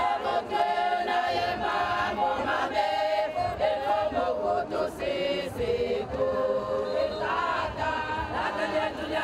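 A large crowd of women's and men's voices singing together as a choir, in long held notes that step from pitch to pitch.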